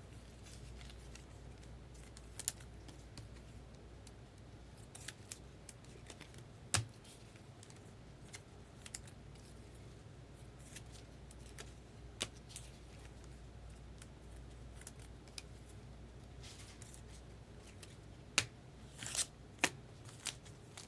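Faint handling of trading cards and packs: scattered sharp clicks and a few brief rustles, over a low steady hum.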